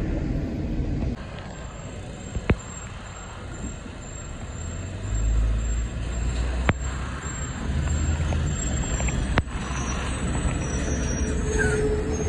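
In-car road and wind noise for about a second, then a semi truck pulling a bulk tanker trailer drives past. Its diesel engine is a low rumble that swells about five seconds in and holds, with a few sharp clicks over it.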